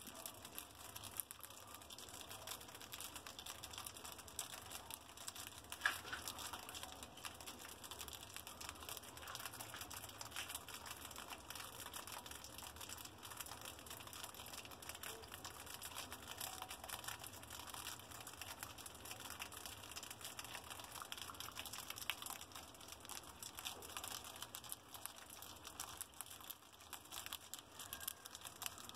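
Pet mice crunching and nibbling dry pellet food: a faint, dense run of quick little clicks and crackles, with one sharper click about six seconds in.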